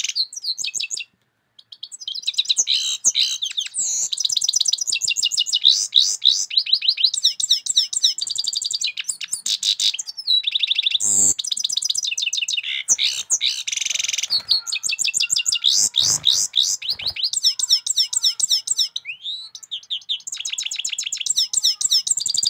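European goldfinch singing a long, fast twittering song of rapid chirps and trills, breaking off briefly about a second in.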